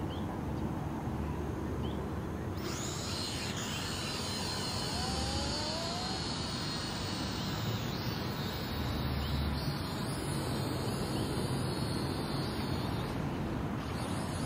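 Syma X5C-1 toy quadcopter's four small motors spinning up about three seconds in, then a high propeller whine that rises and falls in pitch as it lifts off and flies. Under it is a steady low rumble of wind on the microphone.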